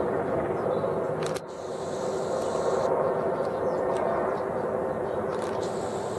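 Steady engine and rotor noise of a firefighting helicopter flying low with a water bucket slung below it. The noise drops suddenly about a second and a half in, then builds back up.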